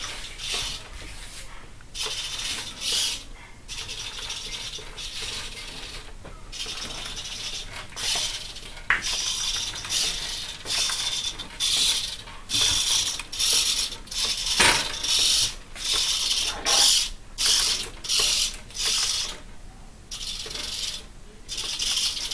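Hobby servos in a homemade animatronic head whirring in short bursts, one after another, as they drive the eyes, eyelids and mouth. A couple of sharp clicks come along the way.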